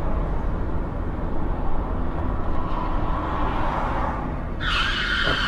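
A car driving at highway speed, heard from a dashcam: steady road and engine rumble. About four and a half seconds in, a sudden loud high-pitched squeal starts and holds.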